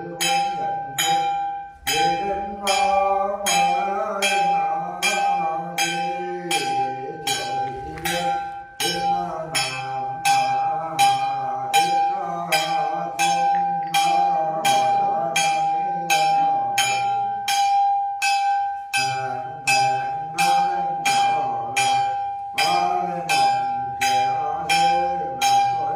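A small ritual bell struck steadily about twice a second, its ringing tone hanging on between strikes, under a man's wavering ritual chanting.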